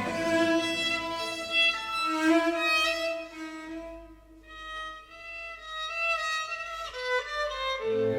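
Background music led by violin: slow, held melodic notes, thinning to a single high line midway before lower strings return near the end.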